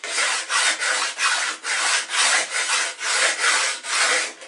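Sandpaper on a sanding block rubbed in quick, regular back-and-forth strokes along the sawn edge of a thin wooden template, smoothing it.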